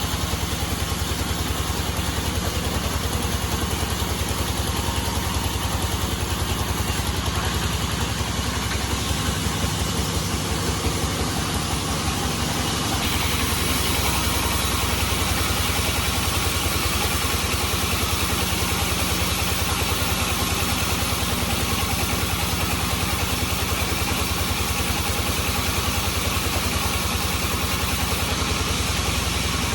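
Band sawmill running, its drive engine going steadily with a fast, even beat. About 13 seconds in, the sound turns brighter and slightly louder.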